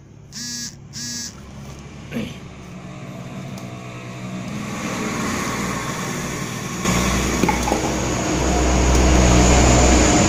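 A steady engine-like rumble that builds up and grows louder, stepping up about seven seconds in. Just before it, near the start, two short high-pitched calls.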